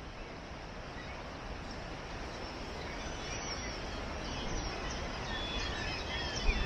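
Small birds chirping in short, high calls from about halfway through, over a steady rushing background noise that grows slightly louder.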